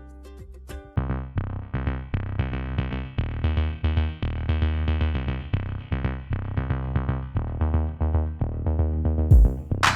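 Electronic background music with a steady synthesizer and drum-machine beat, coming in about a second in.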